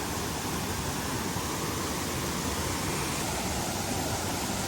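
Steady rush of water from a small mountain waterfall and stream, falling over rocks.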